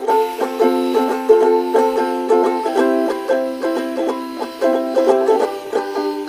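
Background music: a quick tune of short, bright notes that starts suddenly.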